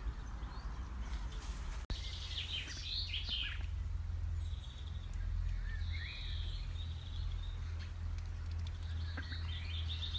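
Outdoor ambience: small birds chirping and calling in short bursts, over a steady low rumble.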